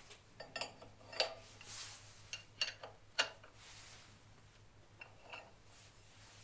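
Light metallic clinks and clicks of steel wrenches and tooling being handled and fitted on a milling machine's collet chuck, about six short, sharp clicks spread out over several seconds.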